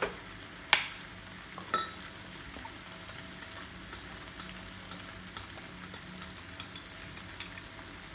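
A sharp knock and then a ringing clink of utensils in the first two seconds. After that, faint, irregular crackling from chicken and vegetables frying in a wok.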